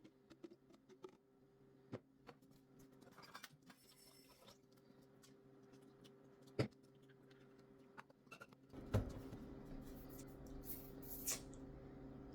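Scattered light clicks and taps of objects being handled over a steady low hum. About nine seconds in, a louder steady rushing noise comes in and carries on.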